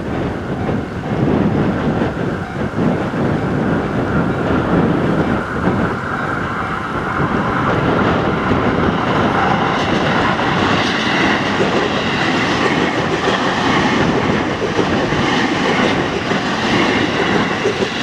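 JR East E257-500 series electric train approaching and passing over a level crossing, its wheels clattering over the rails. The sound grows brighter from about ten seconds in, as the cars come past.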